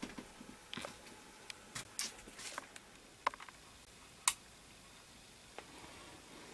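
Scattered small clicks and soft rustles in a quiet room, with a sharp click about four seconds in.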